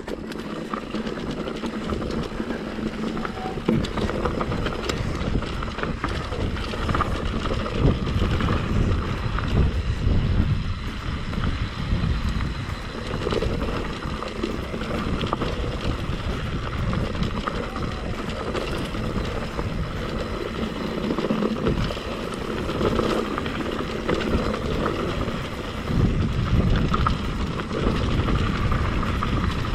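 Mountain bike descending a rocky trail: wind rumbling on the microphone, with tyres rolling over rock and the bike rattling in many short clicks and knocks.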